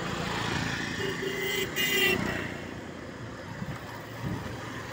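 A CNG auto-rickshaw passing close by with its small engine running, over steady street traffic noise. A brief steady pitched tone sounds about a second in and ends near the two-second mark, the loudest moment.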